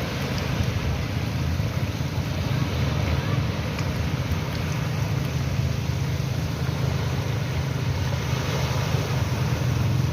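Sea waves making a steady rushing noise over a constant low rumble, with no distinct swells or breaks.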